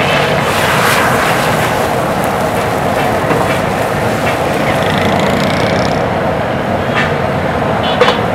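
Chicken and tomatoes sizzling in a karahi over a strong burner flame, a steady loud frying noise, with steam rising off the pan. About eight seconds in, a metal lid clanks onto the karahi.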